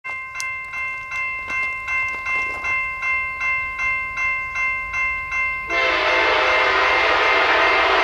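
Railroad grade-crossing bell ringing at about two and a half strikes a second. About three-quarters of the way in, the approaching train's Nathan K5LA five-chime horn on the lead EMD SD70ACe starts a long, loud blast that drowns out the bell.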